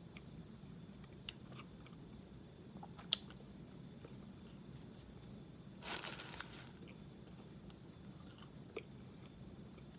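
A person chewing a bite of hamburger close by, with soft wet mouth clicks and one sharp click about three seconds in. There is a brief hiss-like burst of noise about six seconds in.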